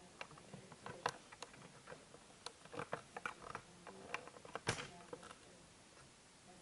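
Scattered faint clicks and small knocks at irregular intervals, with a sharper knock about a second in and a louder one near the end, an unexplained noise that one listener wonders might have been a footstep.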